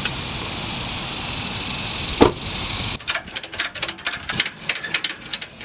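Ratchet strap being cranked tight, its ratchet clicking in quick, uneven strokes from about three seconds in. Before that there is steady outdoor hiss with a single knock.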